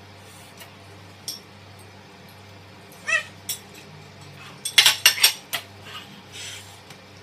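Forks and plates clinking and clattering as the plates are set down on the table, loudest about five seconds in. A short high-pitched squeal comes a couple of seconds before the clatter.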